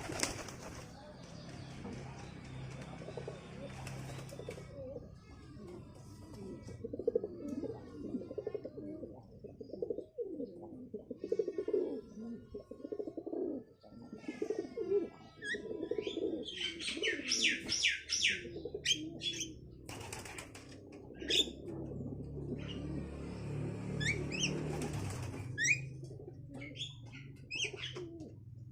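Domestic pigeons cooing continuously, with occasional wing flaps. Over them, Javan mynas give wavering whistles and, about halfway through, a dense burst of harsh chirping calls, with more short chirps near the end.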